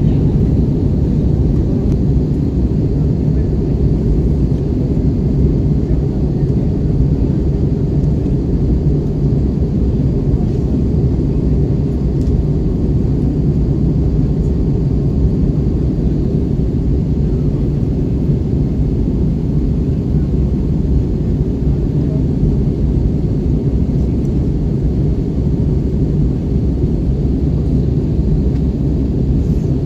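Steady low rumble of an Airbus A320 airliner, unchanging throughout.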